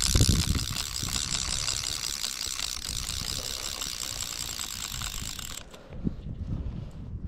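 Fly reel's click-pawl ratchet buzzing steadily as the spool spins with a hooked rainbow trout on the line, cutting off suddenly about five and a half seconds in.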